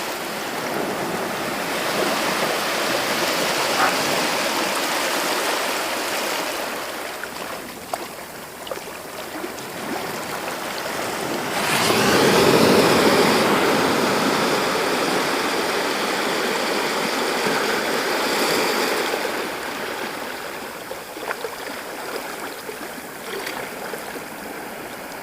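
Sea waves breaking and washing up a beach in a continuous rush of surf. The loudest wave crashes about twelve seconds in.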